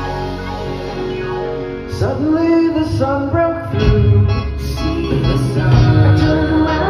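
Live pop band music with singing, with voices coming in about two seconds in.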